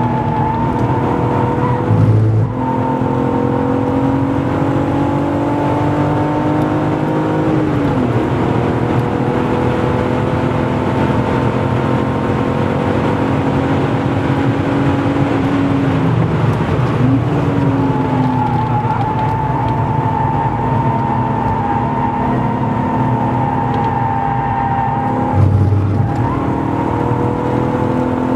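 BMW E36 328i's straight-six engine heard from inside the cabin at racing speed, revs climbing steadily under load. The revs break off and change sharply about two seconds in, twice more in the middle and again near the end, as the driver changes gear and lifts.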